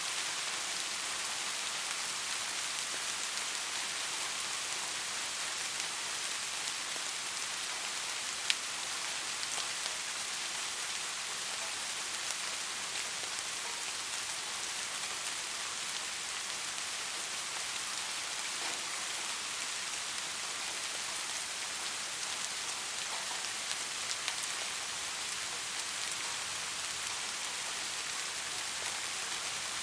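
Steady rain falling, an even hiss with scattered drop ticks and one sharper drip about eight seconds in.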